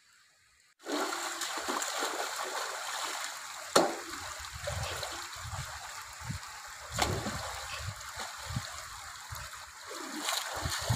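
Shallow stream running over stones, with water sloshing as a metal basin is dipped and rinsed in it and a couple of sharper splashes. It starts abruptly about a second in, and near the end feet splash through the water while wading.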